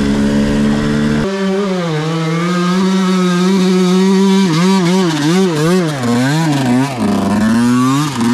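Two-stroke dirt bike engine running, held at fairly steady revs at first. From about halfway, the revs rise and fall in a quick series, several times a second, as the throttle is worked.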